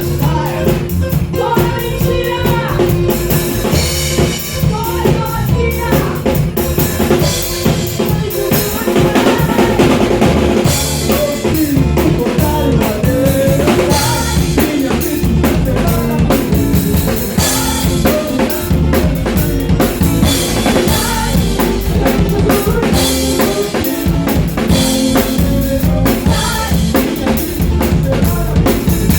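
Live gospel band playing, with a drum kit to the fore: bass drum, snare and cymbals keeping a steady beat over bass and other instruments.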